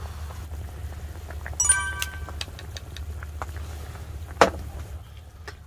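A ringing metallic clink about one and a half seconds in and a sharp knock a little after four seconds, over a steady low hum.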